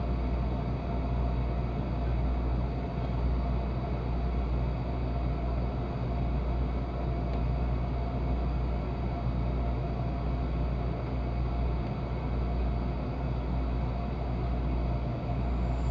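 Home furnace running steadily: a constant low rumble with an even blower hiss.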